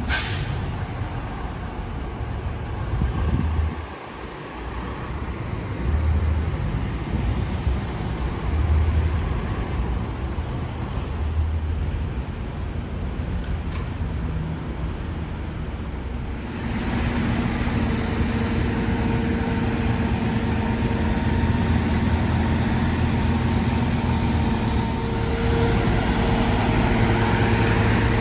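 Street traffic: vehicle engines rumbling and passing. About halfway through, a louder, steady engine hum with a held tone comes in, as of a heavy vehicle or machine running close by.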